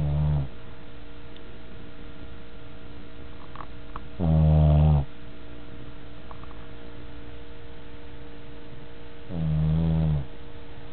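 Pet dog snoring in his sleep: slow, drawn-out low snores about every five seconds. One is ending right at the start, and two more full snores follow, each lasting about a second.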